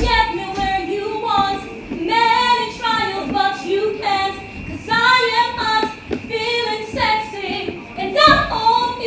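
A woman singing solo into a handheld microphone, in short phrases with brief breaks between them.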